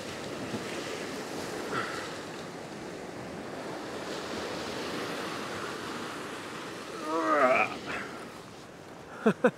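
Ocean swell washing and surging around a coastal rock shelf: a steady hiss of surf. About seven seconds in, a short wavering pitched cry rises over it, and two short sharp sounds come just before the end.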